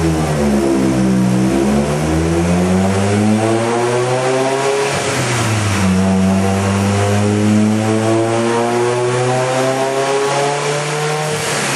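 Turbocharged four-cylinder engine of a 2003 Mitsubishi Lancer Evolution with a 20G turbo, pulling hard under load on a chassis dyno. Its pitch climbs, falls back abruptly about five seconds in and again near the end, then climbs again.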